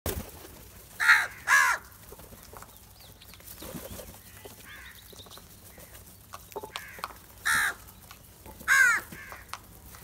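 House crows cawing as a flock feeds: two loud harsh caws about a second in, two more near the end, and fainter calls between.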